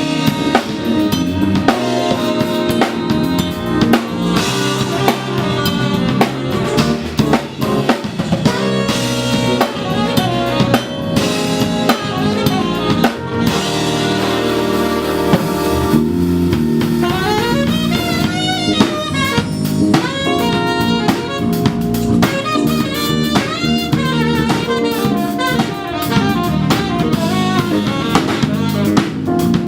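A jazz-soul band playing, the drum kit prominent with bass drum and snare rimshots driving a groove under sustained chords; about halfway through, a lead instrument comes in with quick melodic runs.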